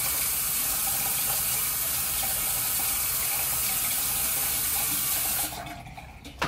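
Bathroom sink tap running steadily as a face is rinsed under it. The flow stops about five and a half seconds in, and there is a sharp click right at the end.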